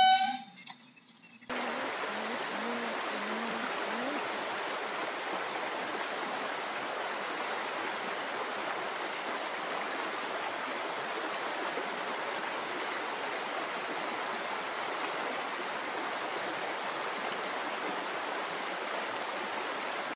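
Steady rushing of a shallow stream that starts suddenly about a second and a half in and keeps an even level throughout.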